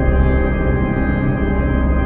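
Spooky ambient background music: many held, droning tones over a deep rumble, running on steadily without a break.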